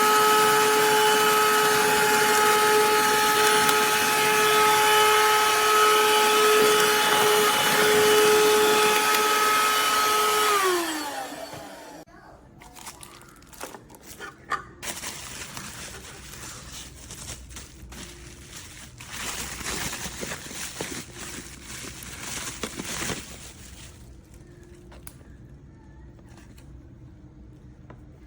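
BSRCO cordless handheld vacuum running with a steady motor whine over a rush of air, switched off about ten seconds in, its pitch falling as the motor spins down. Afterwards, quieter scattered clicks and rustling.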